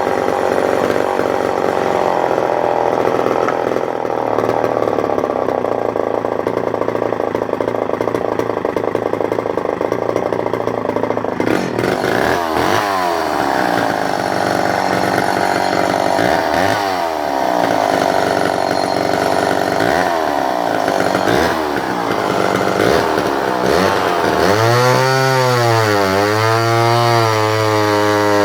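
Remington SL4 59cc two-stroke chainsaw running at high revs for about twelve seconds, then revved up and down several times, and near the end running at a lower, wavering note that swoops up and down.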